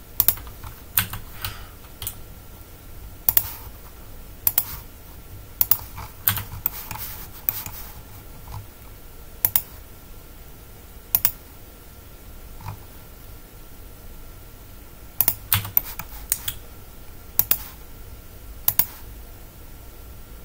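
Computer keyboard and mouse clicks, scattered and irregular: single clicks and short runs a second or so apart, with a faint steady high hum underneath.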